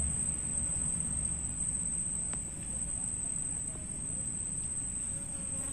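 Insects calling in a steady, unbroken high-pitched drone over a low rumble, with a faint click about two seconds in.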